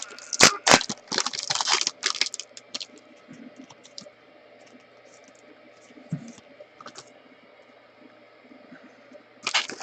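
Trading cards and their cardboard packaging being handled: sharp clicks and rustles, busiest in the first two or three seconds, then a few faint ticks, and another burst of rustling near the end.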